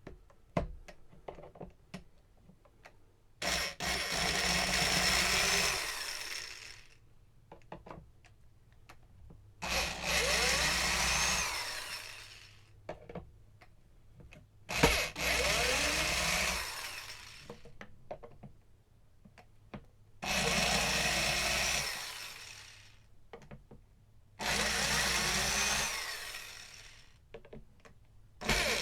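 Power drill-driver backing screws out of a wooden speaker-cabinet back panel, run in six short bursts of a couple of seconds each, each winding down as the trigger is released. Light clicks and handling knocks come between the bursts.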